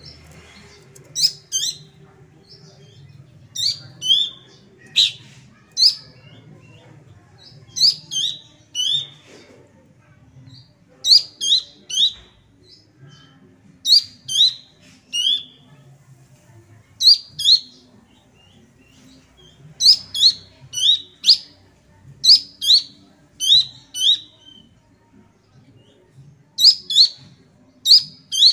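Young Horsfield's babbler (pelanduk semak, cingcoho) calling: short, sharp, downslurred notes in bursts of two to four, repeated every two to three seconds.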